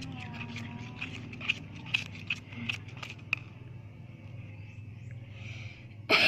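Slime being stirred in a container: sticky clicks and pops, several a second, over a steady low hum, with a short louder burst right at the end.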